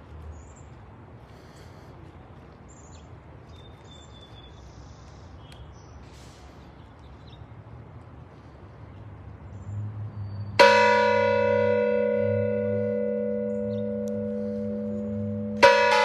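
Mission bells on a stone bell wall, rung by hand with ropes: after about ten seconds of faint background, a bell is struck and rings on with a long, slowly fading tone, and a second stroke comes near the end.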